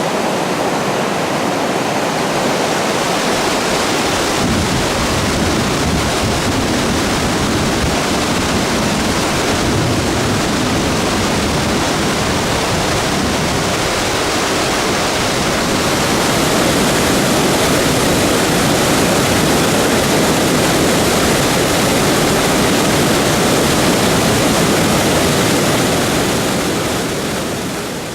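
Mountain waterfall and stream water rushing steadily, getting a little louder about halfway through and fading at the very end.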